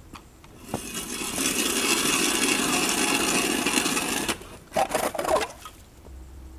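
Hand-cranked ice auger drilling through lake ice about 10 cm thick: a steady grinding scrape for about three and a half seconds, then a shorter, louder burst of scraping about a second later.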